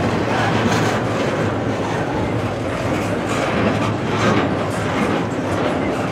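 A long freight train's cars rolling slowly past with a steady rumble and the clack of wheels over rail joints, the train's brakes applied as it slows for a switch.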